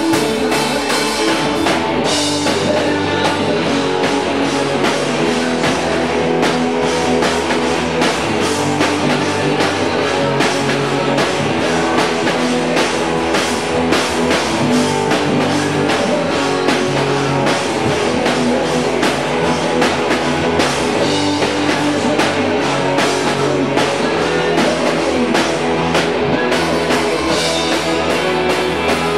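Rock band playing live: electric guitars and a drum kit together in a laid-back blues jam, recorded in a bare concrete garage.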